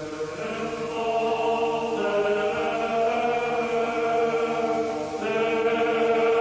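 Choral chanting music: several voices hold long, steady chords that grow louder, the chord shifting a couple of times.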